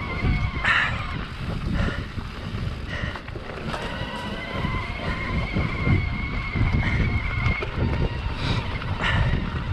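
Mountain bike rolling over a muddy trail: wind buffets the microphone with a steady rumble, the bike knocks and rattles over bumps several times, and a thin, steady high whine comes and goes.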